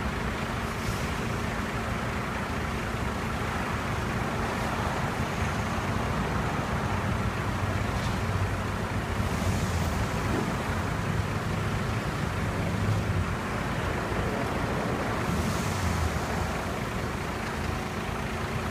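Truck engine running steadily under load, driving the hydraulics of a truck-mounted articulated knuckle-boom crane as its three hydraulic boom extensions telescope out, with a steady low hum.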